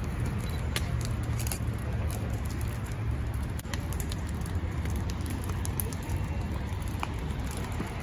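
Large open fire of burning furniture, debris and a vehicle, crackling with sharp pops scattered throughout over a steady low rumble.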